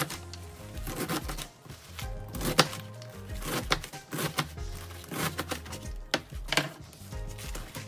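Kitchen knife chopping leafy greens against a plastic cutting board, irregular strokes about every half second. Background music plays underneath.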